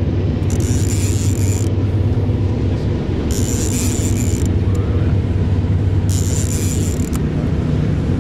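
Boat motor running steadily at low speed. Over it, a fishing reel being cranked gives a high whirr about a second long, roughly every three seconds, as line is wound in during the fight with a big fish.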